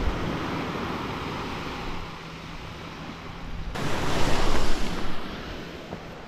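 Sea surf washing on a sandy beach, with a wave breaking and rushing up the sand a little under four seconds in, then fading back.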